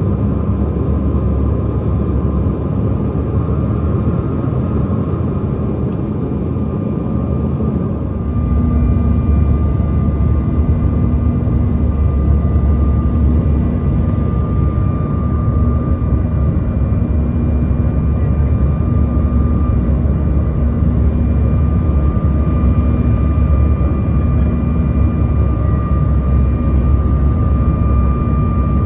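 Jet airliner cabin noise on the descent: a steady drone of the engines and rushing air, with a thin steady whine above it. The low rumble steps up a little about eight seconds in.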